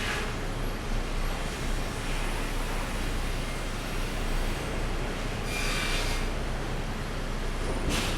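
Sawmill machinery running steadily, a constant mechanical din with a low hum. About five and a half seconds in comes a brief higher-pitched screech, and near the end a single sharp knock.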